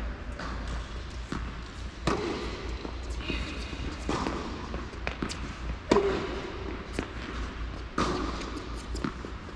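Tennis ball struck back and forth with rackets in a rally: a sharp pop about every two seconds, each ringing briefly in the indoor hall, with lighter ball bounces in between.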